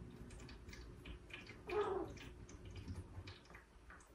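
A cat meows once, briefly and falling in pitch, a little under two seconds in, over faint scattered ticks.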